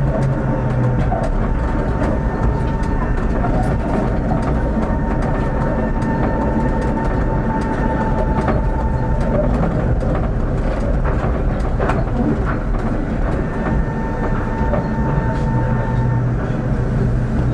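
Prague tram running along street track, heard from on board: a steady rumble of wheels and motors, with sharp clicks over rail joints and points and a thin high tone through much of it.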